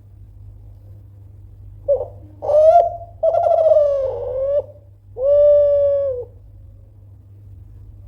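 A Kelantan spotted dove (tekukur) cooing one full phrase: a couple of short notes about two seconds in, then a long trilled coo that drifts slightly lower, then a long steady coo that ends about six seconds in. A steady low hum runs underneath.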